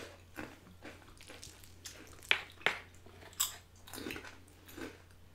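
Close-miked chewing and eating sounds: soft wet chewing with several sharp crunches of crunchy chips, the three loudest a little after the middle.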